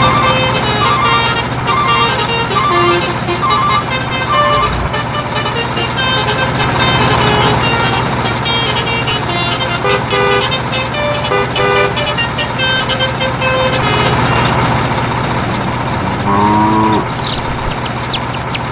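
Background music with a quick ticking beat and a short repeating melody over a steady low drone, stopping about three-quarters of the way through. Near the end a short call rises in pitch, followed by quick high chirps.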